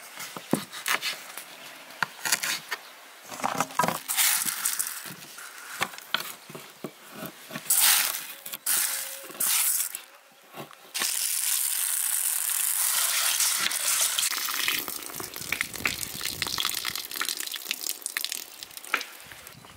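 A knife cutting through dried meat on a wooden board, with scattered taps and knocks. About halfway through, the sound changes to dry beans pouring and rattling in an enamel bowl, then smaller clicks as the beans are shifted about.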